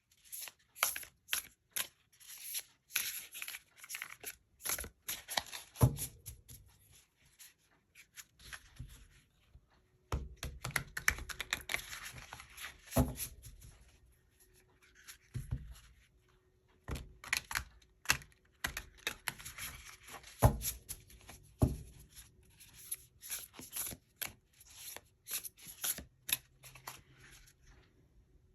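A tarot deck shuffled by hand: quick runs of cards flicking and sliding against each other, with short pauses and a few louder knocks along the way.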